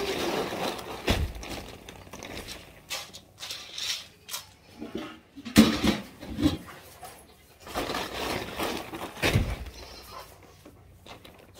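Woven feed sack crinkling and flapping as it is handled and shaken out, with three dull thumps spread through it.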